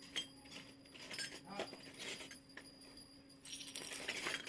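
Miniature toy kitchen pieces being handled: a few sharp clicks and light clinks, then a flurry of small rattling and clicking near the end.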